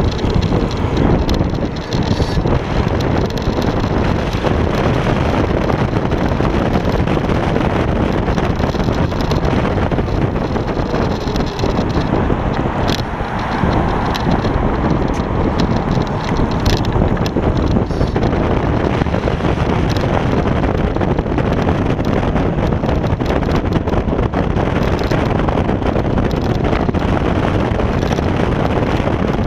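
Steady wind rumble on the microphone and tyre noise on asphalt from an electric scooter riding along at speed.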